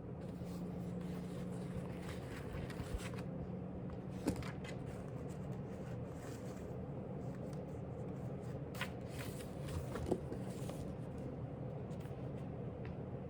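Steady low room hum with faint paper rustling and a few light clicks, like the pages of a paper book being handled and turned.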